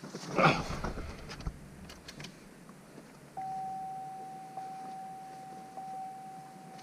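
A brief clatter of handling about half a second in, a few light clicks, then from about three and a half seconds in a single steady electronic beep tone that holds on without a break.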